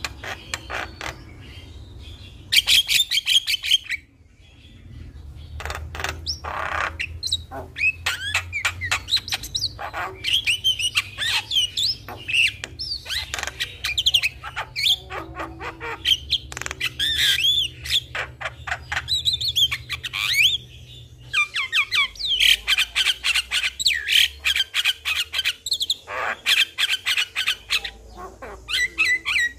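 Javan myna (jalak kebo) in full song: a fast, unbroken run of varied whistles, harsh squawks and clicking chatter.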